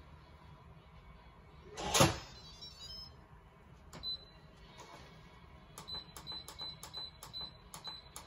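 Instant Pot lid clanks once, loud and ringing, about two seconds in. The control panel then beeps with each button press: a single beep near four seconds and a quick run of about ten short beeps in the last few seconds, as the pressure-cook setting is keyed in.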